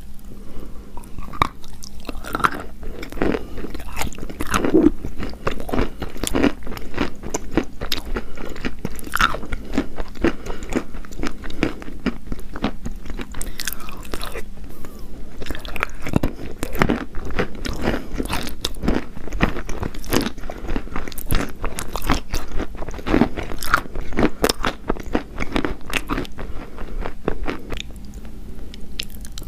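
Pieces of chalk being bitten and chewed, a dense run of sharp, crisp crunches.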